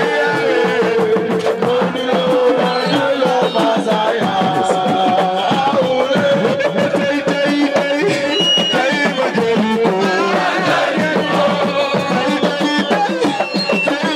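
Loud music with hand drums and a wavering melodic line, likely a voice singing, over a dense, steady drum rhythm.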